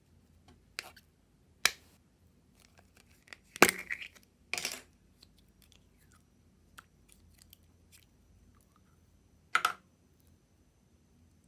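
Putty slime being stretched and squished by hand, giving off sharp sticky pops and small clicks, the loudest cluster a few seconds in and another single pop near the end.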